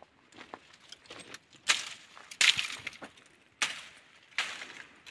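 Footsteps crunching on loose stony ground, about four steps under a second apart.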